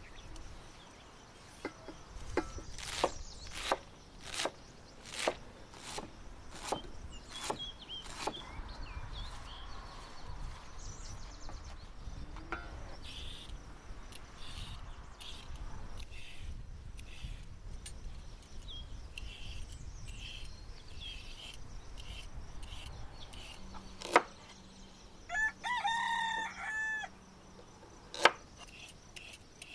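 Knife chopping vegetables on a wooden cutting board in a quick run of sharp knocks, then soft rhythmic scraping strokes of a vegetable peeler on a carrot. A rooster crows once about 25 seconds in, between two single loud chops of a cleaver on the board.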